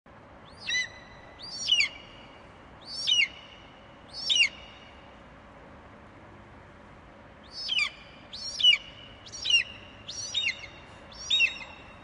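Eagle calling: a series of short, high-pitched, piercing notes, four in quick succession, then a pause of about three seconds, then five more, over a faint steady hiss.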